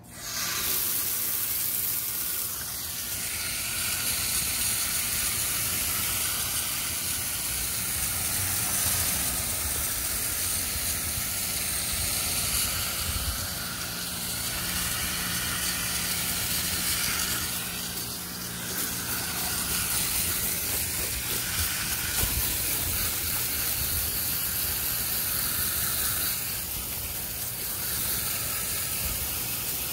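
Garden hose spraying water in a steady stream onto freshly seeded soil.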